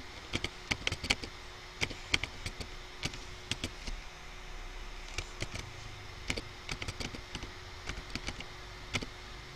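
Typing on a computer keyboard: irregular key clicks, several a second, with short pauses between runs of keystrokes.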